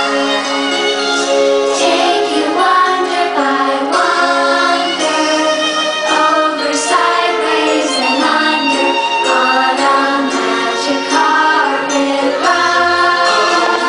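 Fireworks show soundtrack: music with a choir singing, steady and loud.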